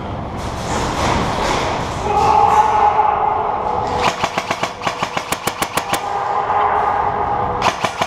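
Airsoft electric rifle (AEG) firing full-auto: a rapid, even clatter of about ten shots a second over a steady motor whine. It fires a long burst from about four seconds in and a short one near the end, after a couple of seconds of rustling movement.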